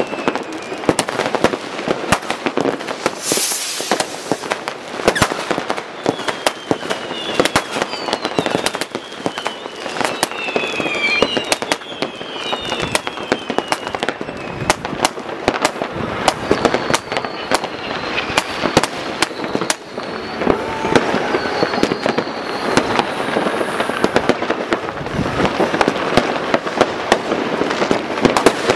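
New Year's Eve consumer fireworks going off across a town: a dense, irregular stream of bangs and firecracker pops. Several whistling rockets can be heard, each whistle falling in pitch.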